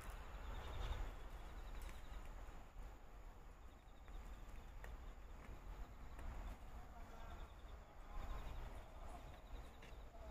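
Faint evening outdoor ambience: insects chirping in short, repeated high trills over a low rumble, with a few soft clicks.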